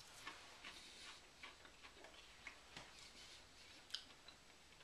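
Faint, irregular clicking crunches of a person chewing a crispy breaded fried green bean.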